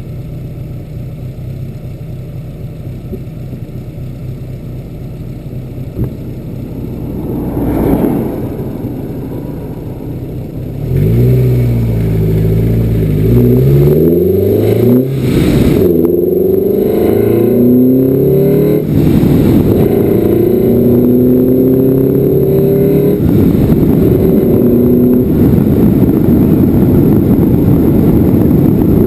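A vehicle engine idles steadily, then about eleven seconds in accelerates through several gears, its pitch rising and dropping back at each shift, and settles into steady cruising. Wind noise rises with speed, picked up by a GoPro in a non-waterproof case covered with a sponge.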